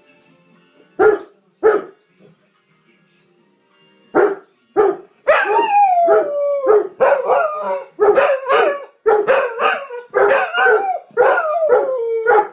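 Two dogs barking a few times, then from about five seconds in howling together in long falling wails broken by short barks.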